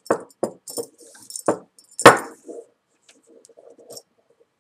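Metal buckle and beads of a paracord dog collar clinking and knocking as the collar is handled. There are about five sharp knocks in the first two seconds, the loudest a little past two seconds in, then light scattered clicks.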